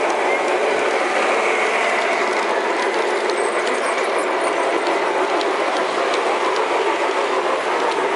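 LGB garden-scale model train running on its track, heard from one of its own cars: a steady mechanical rattle and whir of wheels and gearing, with light scattered clicks.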